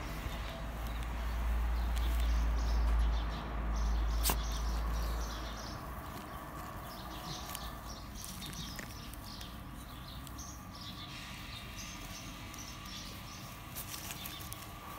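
Low rumble on the microphone for about the first five seconds, then quieter rustling and scuffling on grass with scattered faint high chirps.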